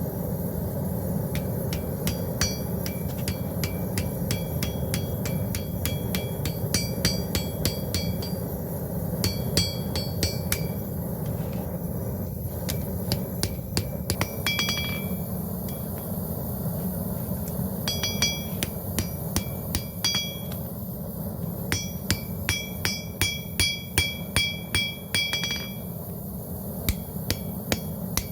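Blacksmith's hammer striking steel on an anvil in runs of quick blows with short pauses between runs, each blow ringing with the anvil's high tones. A steady low rumble runs underneath.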